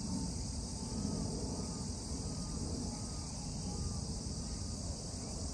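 Steady high-pitched drone of insects in the riverside grass over a low rumble, with a faint run of short, evenly spaced whistled notes in the first few seconds.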